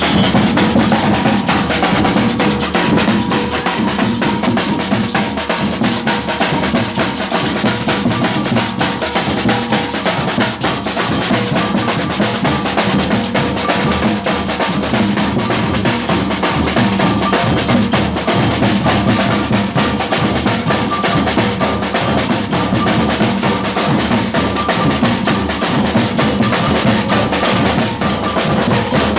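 Batucada samba percussion band playing: many drums at once, deep bass drums under snare drums, in a dense rhythm that keeps going without a break.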